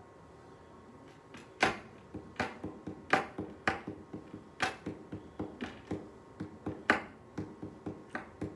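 A run of sharp, irregular clicks or taps, about two to three a second, starting a second or so in, over a faint steady tone.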